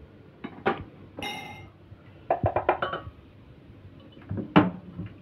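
Metal spoon clinking and scraping against a metal pot while scooping black beans into a plastic bag. There is a short ringing clink about a second in, a quick run of taps a little after two seconds, and a sharp knock near the end.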